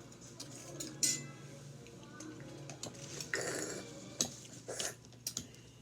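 Dishes and cutlery being handled on a table: a few separate sharp clinks and knocks, with a short scraping rustle in the middle.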